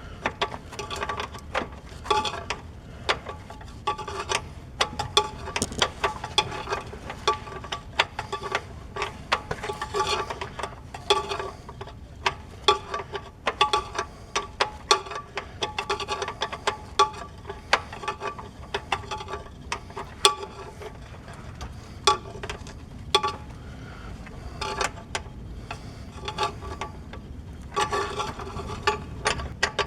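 Hand ratchet clicking in uneven runs, with metallic clinks of the tool, while a bolt on the transmission's shifter lever arm is loosened and removed.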